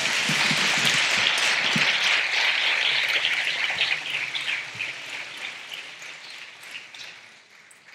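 Audience applauding at the end of a talk, loudest in the first few seconds and then dying away.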